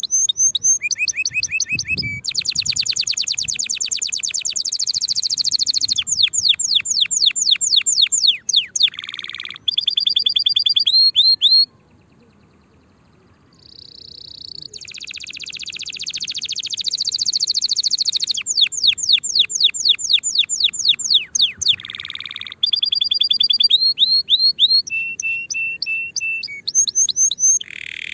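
Domestic canary singing a long song of fast repeated trills and quick downward-sweeping notes, with a pause of about two seconds near the middle before the song swells back in.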